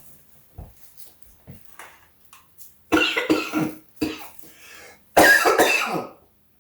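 A person coughing in fits: a cluster of short coughs about three seconds in, and a louder, longer fit near the end. The coughing comes from breathing in the pungent Creole seasoning being shaken over the turkey.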